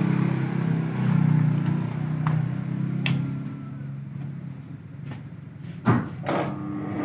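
Electric motor of a large fabric-cutting machine running with a steady low hum just after being switched on. Near the end a sharp knock is followed by a second click as a push button on the machine is pressed.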